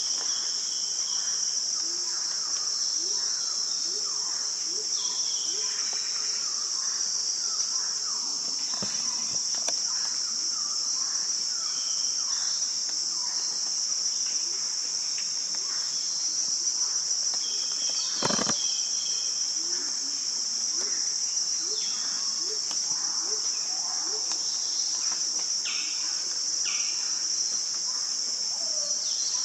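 Steady, high-pitched drone of a chorus of insects, with faint scattered bird calls. A single sharp knock sounds about two-thirds of the way through.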